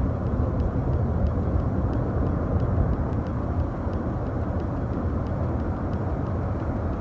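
Landslide of rock and soil coming down a mountainside: a steady, low rumble with no let-up.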